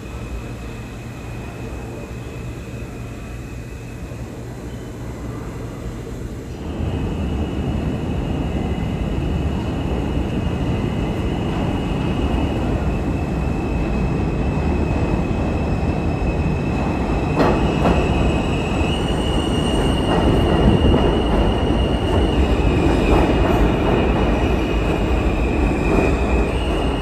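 New York City subway train (Z train) pulling into an underground station: the running noise of wheels on rails swells sharply about six seconds in and grows louder as the cars come alongside. Steady high-pitched tones sound over it, with a few sharp clicks near the loudest part.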